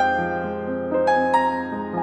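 Background piano music: single notes struck one after another over held chords, a new note about a second in and another shortly after.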